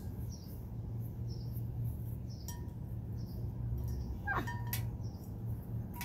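Small birds chirping repeatedly in the background over a low steady rumble, with a few faint clicks and a short falling squeak about four seconds in.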